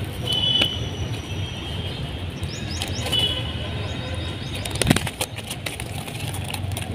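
Rustling and a few sharp knocks from handling a live tilapia and a wet mesh keep-net bag, the loudest knock about five seconds in. Short bird whistles and chirps sound near the start and again around three seconds.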